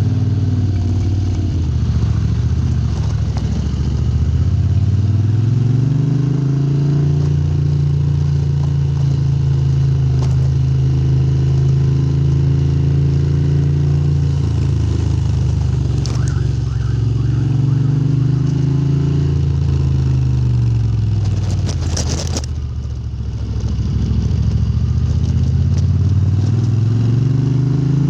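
Moto Guzzi V-twin running through Lafranconi silencers. The engine note climbs, holds steady for several seconds, then falls and picks up again twice. About three quarters of the way through there is a brief dip with a short rush of noise.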